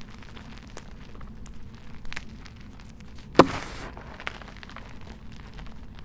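Dyed gym chalk being crushed by hand: scattered small crunches and crumbling crackles, with one loud crunch about three and a half seconds in.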